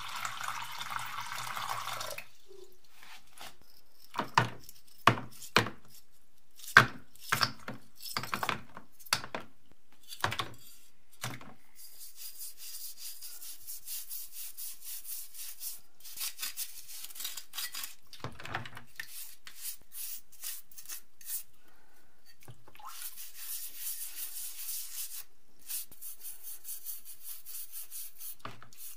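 Water pouring into a plastic tub for about two seconds, then a series of sharp knocks and clicks. From about twelve seconds in, a toothbrush scrubs a wet, rusty metal part in quick, scratchy back-and-forth strokes.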